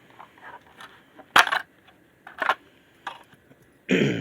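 Small hard clicks and clinks of little flathead screwdrivers and a pick against the plastic DIC module housing as it is worked apart, the sharpest about a second and a half in and another about a second later. A short vocal sound near the end.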